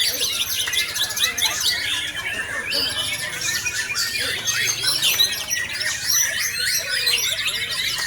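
White-rumped shama (murai batu) singing a dense, continuous stream of rapid, varied whistles and chatters. It is a lure song of the kind played to provoke captive shamas into singing.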